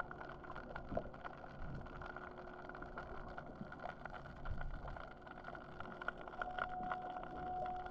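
Muffled underwater sound picked up through a GoPro's waterproof housing: a low, steady wash with scattered clicks and knocks and a steady hum, joined by a higher tone near the end.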